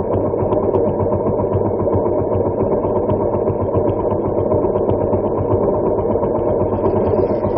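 Harley-Davidson Sportster Superlow XL883L's air-cooled 883 cc V-twin idling steadily at standstill.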